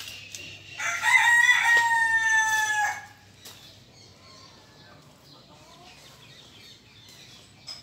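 A rooster crows once, starting about a second in: a call of about two seconds whose long final note sags slightly in pitch. Faint outdoor background follows.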